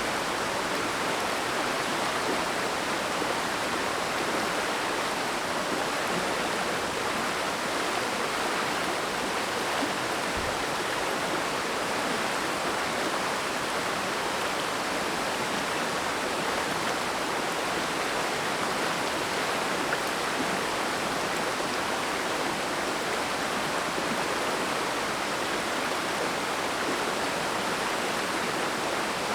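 Oirase mountain stream's water rushing steadily, an even, unbroken flow of running water.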